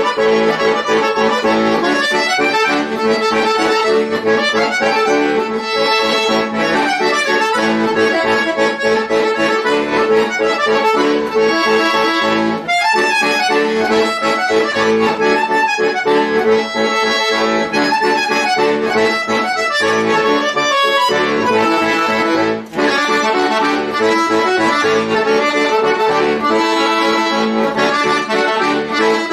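Chromatic button accordion played solo: steady held low notes under a busy, fast-moving melody, with a brief break about three-quarters of the way through.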